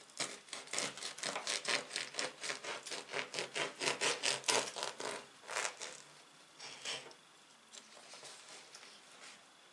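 Kitchen knife sawing through the crust of a round loaf of bread on a wooden cutting board: quick back-and-forth rasping strokes, about four a second, that thin out and fade after about six seconds.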